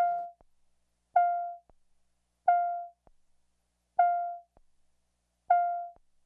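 A roll-call vote chime in the legislative chamber sounds five times, about every one and a half seconds, signalling that the vote is open. Each time it plays a single pitched tone that starts loud and fades over about half a second.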